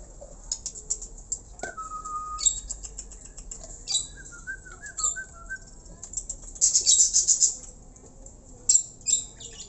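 Caged birds chirping with short, sharp high calls, loudest in a dense run of chirps about seven seconds in. A brief clear whistle comes near two seconds in and a warbling whistle between about four and five seconds.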